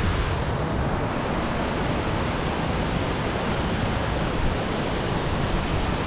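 Bâlea waterfall: falling water making a loud, steady rush of noise.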